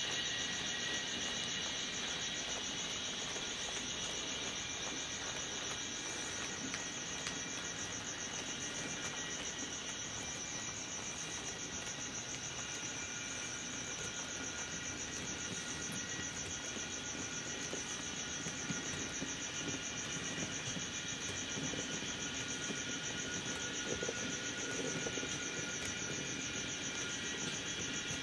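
Märklin H0 model freight train running on its track: a steady high-pitched whine over a rolling rattle of the wagon wheels, with the BR 194 locomotive's ESU sound module.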